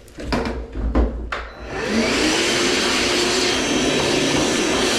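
A few handling knocks, then a vacuum cleaner switches on about two seconds in, its motor whine rising as it spins up, and runs steadily at full speed.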